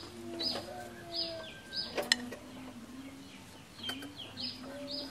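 Birds chirping over and over in short, high, falling notes, a few a second, with chickens clucking low underneath. A few sharp clicks break in now and then.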